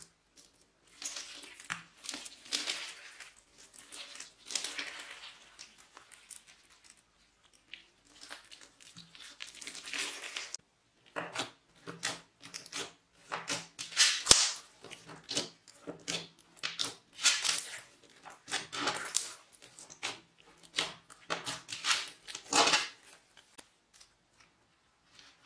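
Clear slime with flower-shaped sequins and small beads being kneaded, pressed and stretched by hand, giving irregular bursts of sticky noise, with a sharp peak about halfway through.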